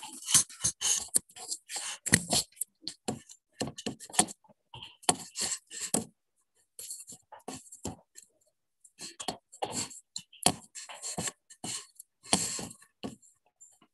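Handling noise from a webcam being picked up and repositioned: a rapid string of knocks, bumps, scrapes and rustles, broken by short spells of dead silence.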